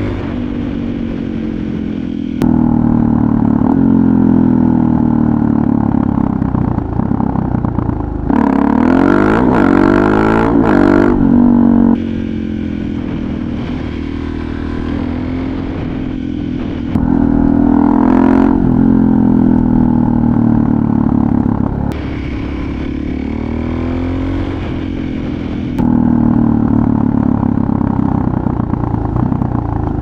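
Suzuki DR-Z400SM's single-cylinder four-stroke engine through a full FMF Powercore 4 exhaust, riding along with the revs rising and falling through gear changes. The level and tone step every few seconds as the sound switches between a helmet-camera microphone and a separate handheld recorder.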